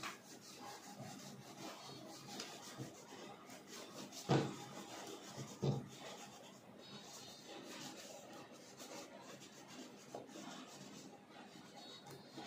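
Faint continuous rubbing of a cloth rag over a leather boot, wiping on leather deglazer to strip the finish before dyeing, with two short knocks about four and six seconds in.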